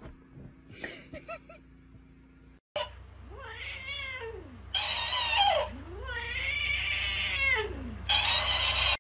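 A cat yowling at a talking hamster toy in two long, growling wails that rise and fall in pitch. Each wail is followed by a higher-pitched copy of it from the toy, and the exchange keeps getting angrier.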